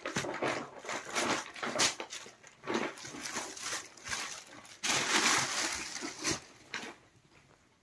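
Cloth rustling and swishing as a folded printed suit piece is unfolded and moved about, with scattered short handling knocks. A longer, louder swish comes about five seconds in, and it falls quiet near the end.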